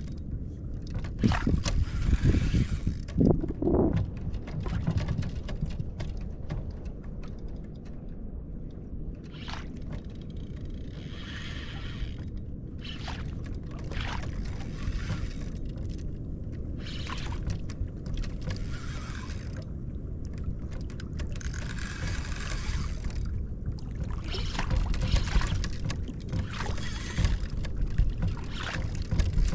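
Wind rumble and water noise aboard a kayak at sea, with short swishing bursts of water about every one to two seconds.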